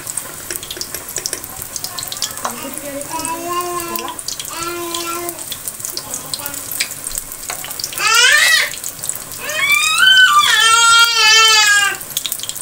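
Gram-flour batter dumplings deep-frying in hot oil with a steady crackling sizzle, and a spoon stirring them. Over it, a young child's high voice cries out several times, loudest and longest in the last few seconds.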